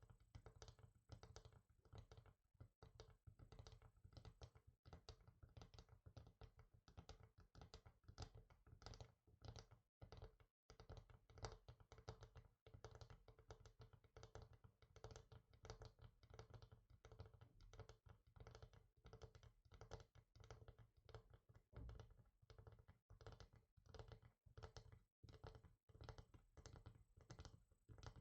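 Fingers tapping quickly and lightly on a hard surface, several faint taps a second in an uneven patter, with a short pause about ten seconds in.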